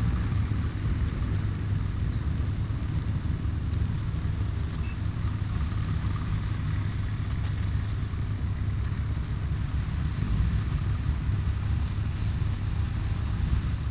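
Bomber aircraft engines running, heard from outside the aircraft: a steady low rumble, with a faint high whine for a second or so about six seconds in.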